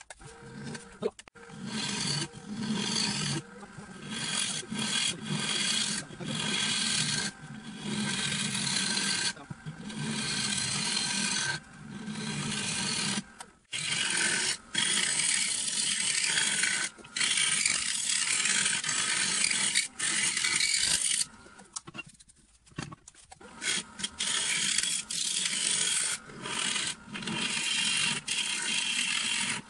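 Wood lathe with a turning tool cutting a spinning wooden bowl with a clear resin inlay: a rough, hissing scrape in repeated passes, some brief and some several seconds long, with short pauses between them and a low hum underneath.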